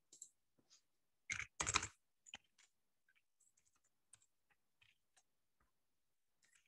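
Computer keyboard typing: a quick cluster of louder keystrokes about a second and a half in, then scattered faint single key clicks while a file name is edited.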